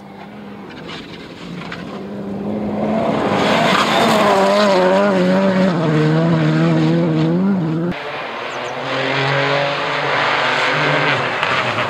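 Rally cars driven hard on a special stage: an engine building to full throttle, its note rising and falling with throttle and gear changes as the car comes through on loose gravel. After an abrupt cut about two-thirds of the way in, a second rally car, a Peugeot 208, is heard approaching at speed.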